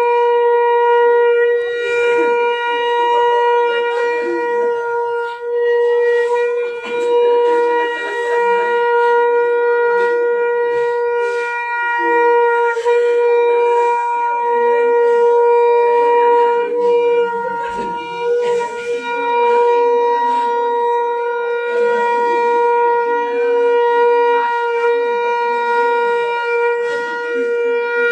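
A loud, steady drone held at one pitch without a break, like a wind instrument, with fainter irregular noise underneath.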